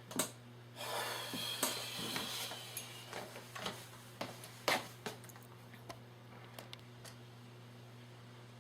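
Handling clicks, knocks and rubbing as a rifle scope is fitted onto its mount, with a sharp click near the start and another a little past halfway.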